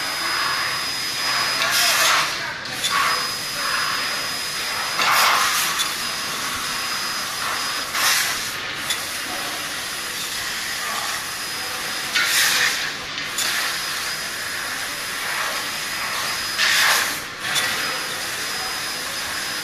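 Laser tube-cutting machine cutting a rectangular steel tube: a steady hiss of assist gas with a faint high whine, broken every three to four seconds by a louder rush of hiss lasting about half a second to a second.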